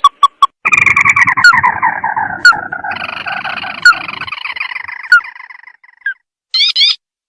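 Recorded call of a tikusan crake played as a bird lure: a few short sharp notes, then a long rattling trill that slowly falls in pitch and fades away over about five seconds, with clear single notes ringing over it. A brief run of quick rising notes follows near the end.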